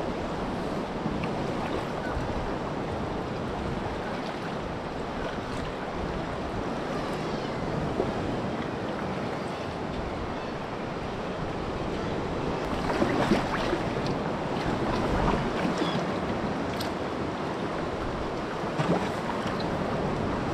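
Sea kayak paddle blades dipping and splashing in calm sea water, over a steady wash of water and wind on the microphone; a few louder splashes come about two-thirds of the way through.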